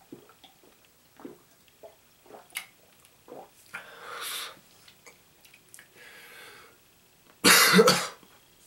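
A man swallowing apple cider vinegar in gulps, then gasping harshly and letting out one loud cough near the end as the vinegar burns his throat.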